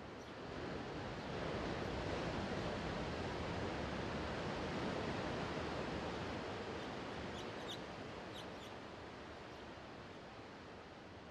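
Sea waves washing onto a rocky shore: one swell of surf rises about a second in, holds, then ebbs away. A few short high chirps sound near the end.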